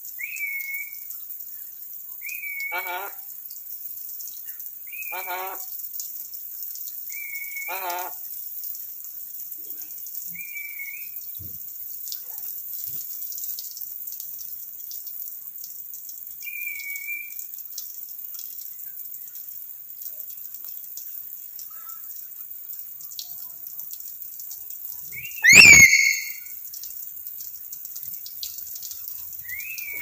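Black-capped lory calling: short whistled notes every few seconds, three of them running into a brief gurgling chatter, and one loud call near the end.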